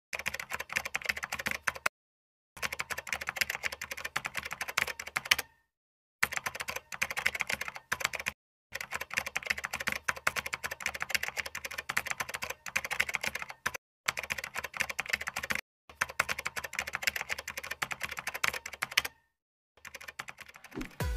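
Typing sound effect of a computer keyboard: rapid runs of key clicks in bursts of a few seconds, broken by short pauses, as the on-screen disclaimer text is typed out.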